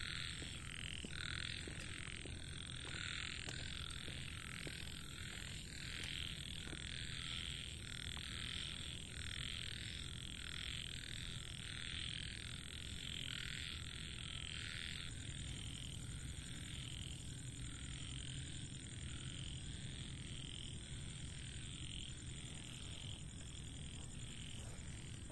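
Frogs croaking in a steady rhythm, about two calls a second, slightly weaker in the second half.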